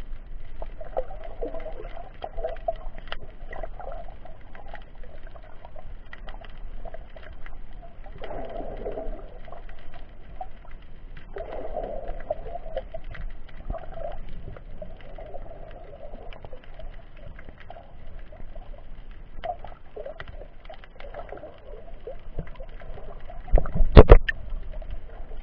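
Muffled underwater sound picked up by an action camera sealed in its waterproof case: a dull wash of moving water that swells now and then, peppered with small clicks and crackles. A few loud knocks near the end, like the case bumping.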